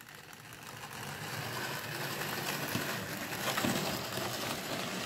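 A 00 gauge model train pulling away and running along the track. The locomotive's small electric motor and gears whir and the wheels run on the rails with faint clicks. The sound builds up over the first second as the train gets going, then holds steady.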